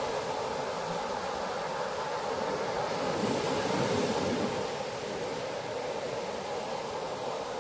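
Steady rush of sea surf on a sandy beach, mixed with wind noise, swelling slightly midway.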